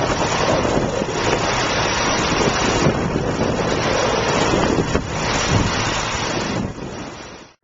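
Strong blizzard wind buffeting the microphone: a loud, gusty rushing noise heaviest in the low end, which stops suddenly near the end.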